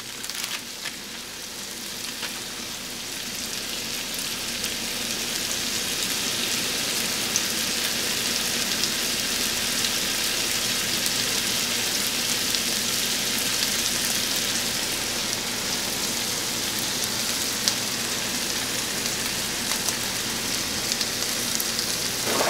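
Seasoned chicken pieces sizzling steadily in a frying pan, growing a little louder over the first few seconds, with an occasional pop.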